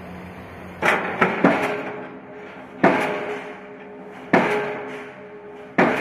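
Delmag D125-32 diesel pile hammer starting to fire on a 42-inch hollow steel pipe pile: sharp metallic blows, each trailed by a steady ring. It begins about a second in with a quick group of three, then settles into single blows about every second and a half.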